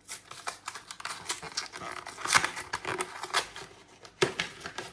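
Wrapping crinkling and tearing as a trading-card tin is opened, with irregular crackles and sharp handling clicks, a few louder ones about two and a half and four seconds in.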